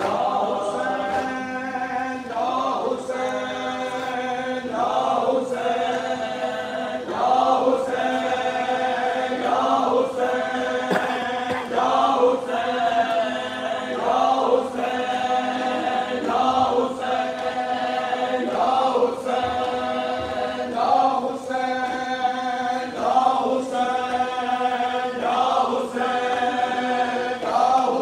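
Crowd of men chanting a Muharram mourning chant (noha) together, in short sung phrases repeated over and over every second or two.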